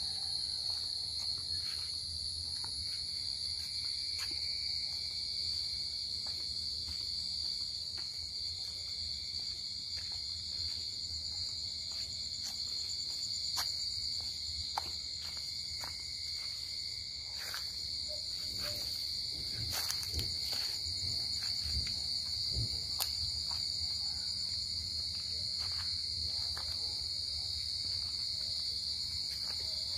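Field crickets chirping all around in a steady, dense chorus. Brief knocks and rustles of footsteps through the undergrowth come and go, mostly in the middle.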